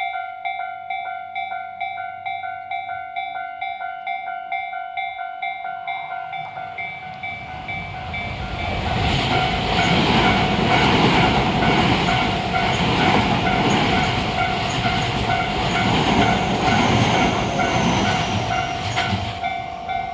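Japanese railway level-crossing alarm ringing a fast, even run of electronic dings. About seven seconds in, a Tobu Tojo Line train comes up and passes through, its wheels running loud over the rails for about ten seconds before it fades near the end with the alarm still ringing.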